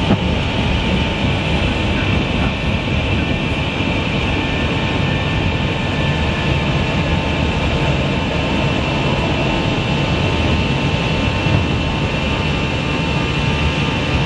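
Steady cockpit noise of a jet airliner climbing after takeoff: engine and rushing-air noise with a faint steady whine running through it.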